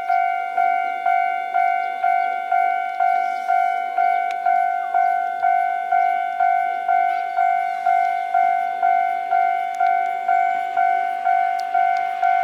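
Railway level-crossing warning bell ringing steadily, about two strikes a second, each strike on the same pitch and dying away before the next: the crossing is closed as a train approaches.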